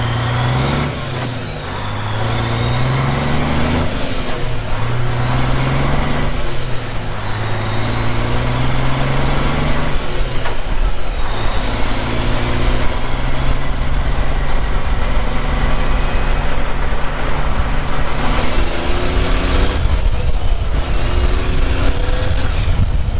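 Semi-truck's diesel engine pulling away through the gears: the revs climb and drop back several times as it upshifts, with a high turbo whistle rising and falling along with them, then it holds a steady cruise. In the last few seconds a rough low rumble of wind and road noise grows on the outside-mounted microphone.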